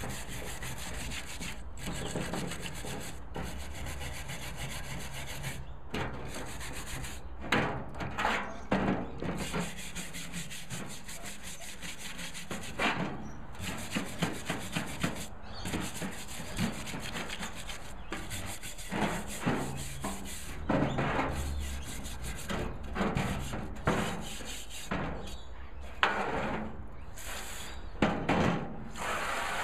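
Wire brush scrubbing a rusty cast iron barbecue burner in a bath of molasses-and-water rust remover: irregular rasping strokes, with a few sharper knocks, as the rust loosened by the soak is brushed off.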